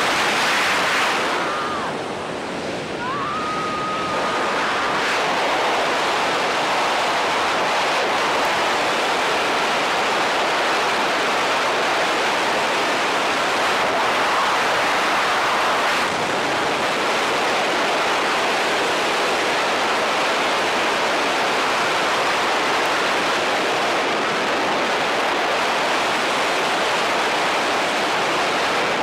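Freefall wind rushing over the camera microphone in a tandem skydive: a loud, steady rush of air. A few seconds in, a short high held tone sounds over it.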